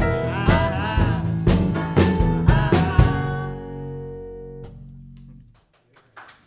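A live band with acoustic guitar, bass and drums plays a song's closing bars: regular drum hits for about three seconds, then a final chord rings out and is cut off sharply. Faint applause starts near the end.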